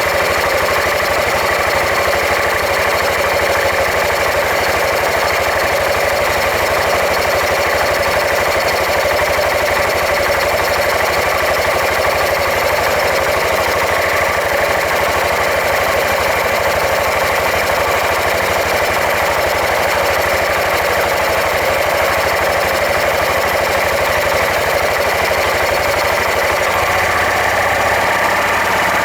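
Suzuki Skywave 400 (CK44A) scooter's engine and belt-drive unit running steadily, with a rapid, continuous mechanical pulsing: the abnormal noise from the drive section (pulley and clutch).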